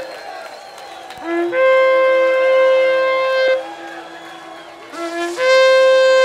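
Shofar blasts: two long calls, each starting on a lower note and jumping up to a higher note that is held for about two seconds.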